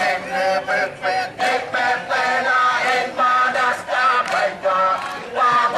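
A large group of voices chanting together in unison, a rhythmic sung cheer in short repeated phrases.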